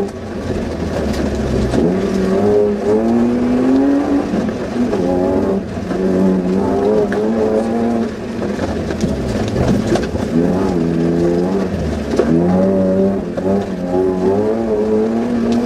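Suzuki Vitara off-road rally car's engine heard from inside the cabin, its revs climbing and falling back several times under hard acceleration.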